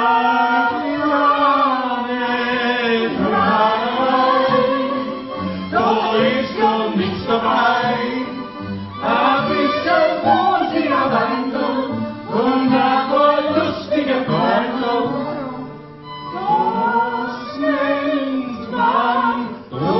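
A Wienerlied sung live to a Schrammel ensemble of violins, accordion and guitar, in phrases of a few seconds with short breaths between them.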